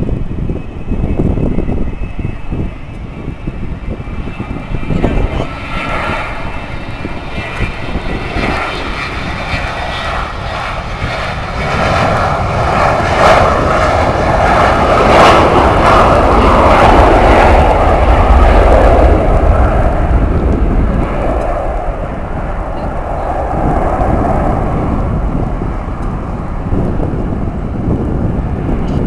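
McDonnell Douglas MD-88 jet airliner taking off, its rear-mounted Pratt & Whitney JT8D turbofans at takeoff power. A whining engine tone and jet noise build to their loudest about halfway through as it passes, then gradually fade.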